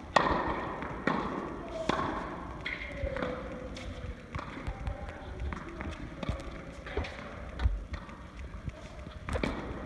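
Tennis ball struck with a racket and bouncing on an indoor court: a series of sharp pops, roughly one a second, echoing in the hall.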